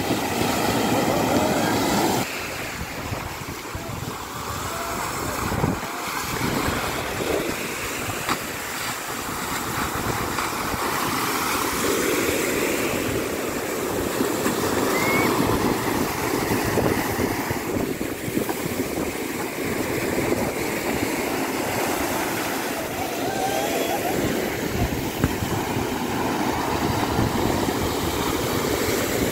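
Small waves breaking and surf washing up onto a sandy beach, with wind rumbling on the microphone.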